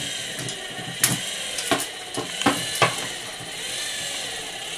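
Small toy train engines clacking against each other as they are stacked by hand, about five sharp clicks between one and three seconds in.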